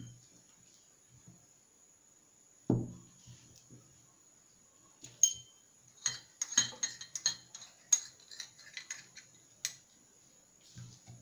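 A spoon clinking against a small dish, a run of sharp clinks over several seconds, after a single dull knock about two and a half seconds in.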